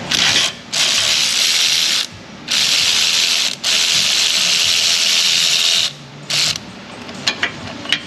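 Ratchet on a long wobble extension clicking in five quick runs, the longest over two seconds, as it backs out an A/C compressor mounting bolt; it stops about six and a half seconds in, followed by a few light ticks.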